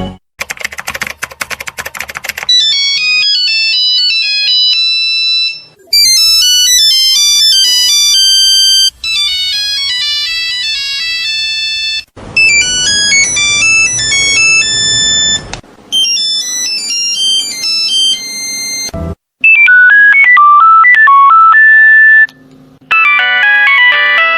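A run of Nokia mobile phone ringtones played one after another, each a few seconds long. The early ones are thin, high beeping melodies; the later ones are fuller, with chords and a bass line underneath.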